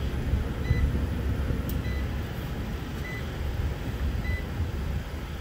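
Friedrich VRP packaged heat pump running just after start-up, its inverter-driven compressor and fan giving a steady low rumble. A short high beep repeats about every 1.2 seconds over it.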